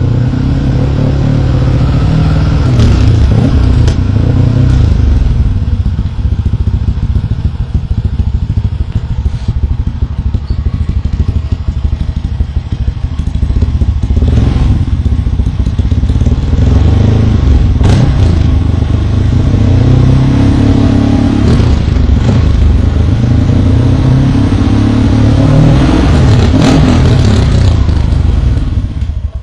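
Honda Click scooter's single-cylinder four-stroke engine running through an aftermarket Akrapovic-branded slip-on muffler, the throttle blipped again and again so the exhaust note rises and falls in pitch. It cuts off suddenly at the end.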